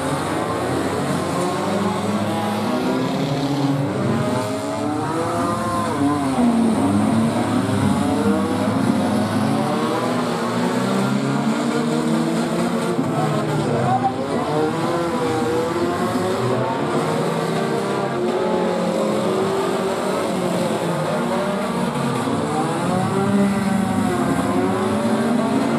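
A field of small compact figure-8 race cars racing together, several engines overlapping and revving up and down in pitch as the cars accelerate and lift around the track.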